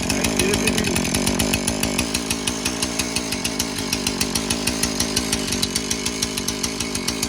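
Two-stroke chainsaw engine running steadily, with a fast, even firing pulse.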